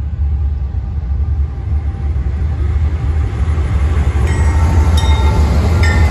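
BNSF freight train's diesel locomotives running past at close range, a deep steady engine drone that grows louder as the units draw level. From about four seconds in, a few sharp clicks and short squeaks come from the wheels on the rails.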